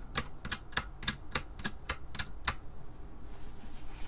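Plastic paddle toggle switches on an IMSAI 8080 replica front panel being flicked one after another: a quick run of about a dozen sharp clicks, about four a second, stopping about two and a half seconds in.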